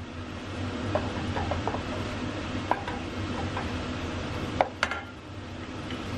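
Wooden spoon stirring thick mushroom risotto in a stainless steel sauté pan, with soft scrapes and a scatter of light knocks against the pan, then two sharper knocks close together near five seconds in as the spoon is laid down in the pan. A steady hum runs underneath.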